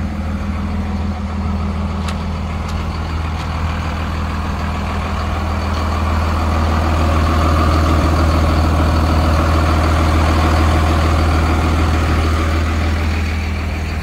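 Heavy diesel engine idling steadily, growing somewhat louder from the middle on.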